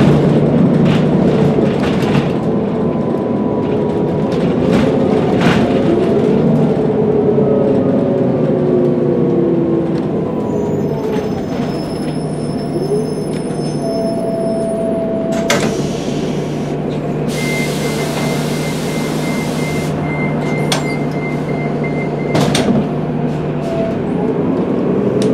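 A 2016 Gillig Advantage low-floor diesel bus with a Cummins ISL9 engine is heard from on board, with a steady engine hum and a falling whine in the first half. About fifteen seconds in comes a short sharp air hiss, then about five seconds of hissing with a rapid high-pitched beeping.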